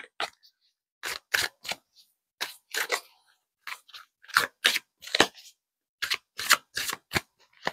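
A deck of tarot cards being shuffled by hand to draw a clarifying card: a run of short, irregular card snaps and slaps, two or three a second.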